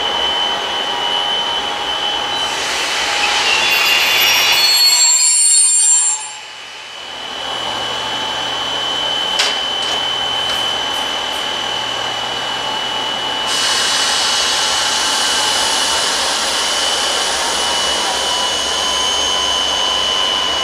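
Freight train with two diesel locomotives moving slowly: a steady, rough grinding noise with a steady high-pitched whine over it. The noise dips sharply for a moment about six seconds in and turns brighter and hissier about halfway through.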